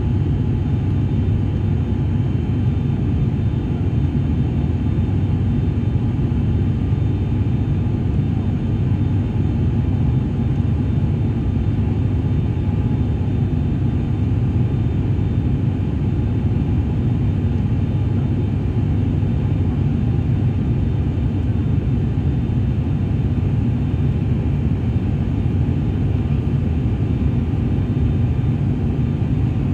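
Steady cabin drone of an ATR-42's twin turboprop engines and propellers during the climb after takeoff, a loud low rumble with a few faint steady tones above it.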